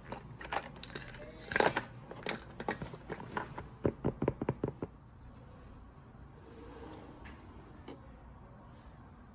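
Handling noises: irregular rustling and clicking, then a quick run of sharp clicks about four seconds in, followed by quiet room tone.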